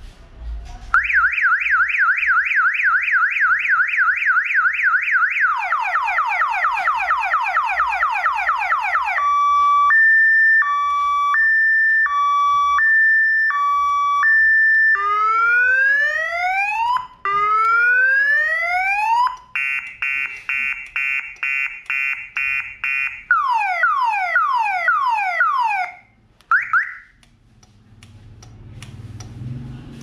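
Aventail Flip Key car alarm siren horn running its multi-tone cycle: a fast warble, then falling sweeps, a hi-lo two-tone, rising whoops, a rapid pulsed tone and quicker falling sweeps. It stops about 26 seconds in and gives short chirps after.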